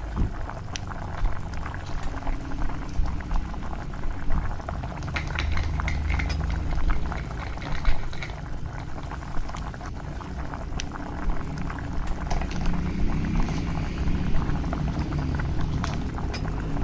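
Liquid bubbling at the boil in a small pot as seafood noodles cook, with many small crackles and light clicks.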